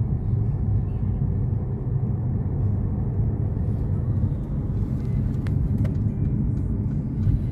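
Inside a moving car: a steady low rumble of engine and tyre noise on the road, with two faint ticks about five and a half seconds in.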